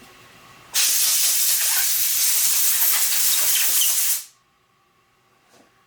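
A loud hiss from a pressurised spray nozzle, blowing out or spraying a small sewing-machine part to clear away dirt. It starts just under a second in, holds steady for about three and a half seconds, and then stops.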